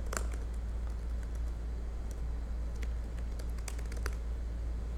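Computer keyboard keystrokes: a few scattered, unhurried clicks over a steady low background hum.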